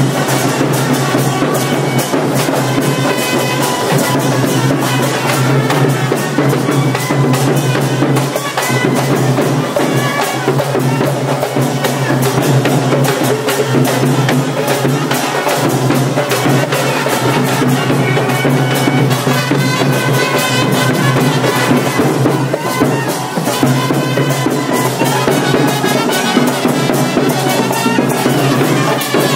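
Loud, continuous music with drums and brass instruments, a busy drum beat under it.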